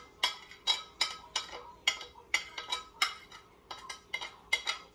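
A spoon scraping and tapping a ceramic plate in quick strokes, about three a second, pushing ground spice off the plate.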